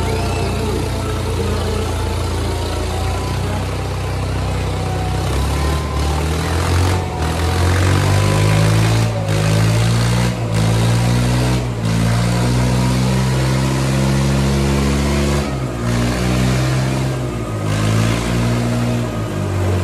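Diesel engines of a Kubota 5501 and a New Holland 3600 tractor running hard under heavy load, pulling against each other in a tug-of-war, with the engine pitch rising and falling.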